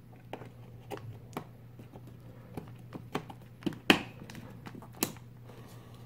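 Scattered light plastic clicks and taps as a DDR4 memory stick is handled and pressed into a motherboard's DIMM slot, the sharpest click about four seconds in.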